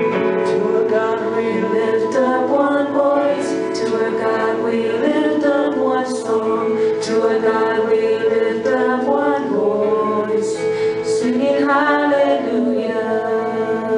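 Live worship song: several voices, a woman's among them, singing the chorus together over a strummed acoustic guitar, with long held notes.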